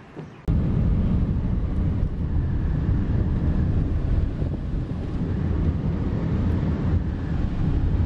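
Steady low rumble of a moving car heard from inside the cab: engine and road noise, starting abruptly about half a second in.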